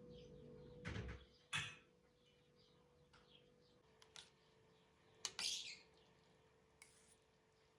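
Faint bird chirps over quiet room tone, with a few short knocks and a brief scrape.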